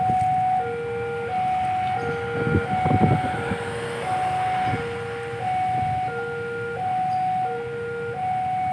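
Railway level-crossing warning alarm sounding a two-tone signal, a low and a high tone taking turns, each held under a second, warning that a train is approaching. Road traffic runs underneath, with a louder passing vehicle about three seconds in.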